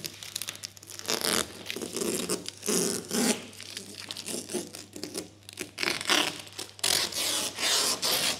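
Knifeless cutting tape being pulled through vinyl wrap film to cut it along a window edge, and the cut-off film and application film being torn away and crinkling in the hand: an irregular series of short rasping tears.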